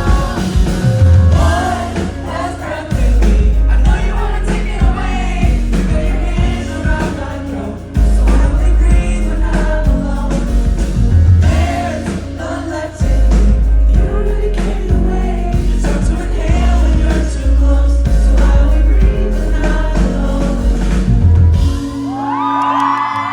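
Live band and singer performing a pop song with a heavy bass beat; the song ends near the end, followed by high-pitched screaming from the crowd.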